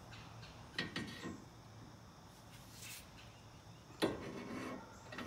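Fox-body Mustang front brake rotor, its bearings freshly packed, being slid by hand onto the greased spindle: faint rubbing and handling noises, with a sharper light knock about four seconds in.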